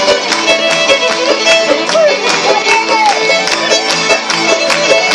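Fiddle-led bluegrass music with the steady, rhythmic clatter of clogging shoe taps striking the stage, several sharp taps a second in time with the tune.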